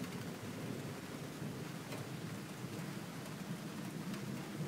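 Thunder from a distant storm rumbling low and long, swelling at the start and rolling on without a break, over a steady hiss of rain with scattered drop ticks.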